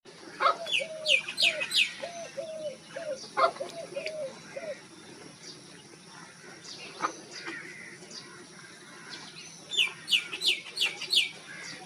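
Wild dove cooing: a run of about ten short, low coos over the first five seconds. A smaller bird calls in high chirps, in two quick runs of about four, near the start and again near the end.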